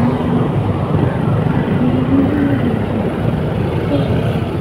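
Steady running noise of a vehicle on the move: engine and road rumble.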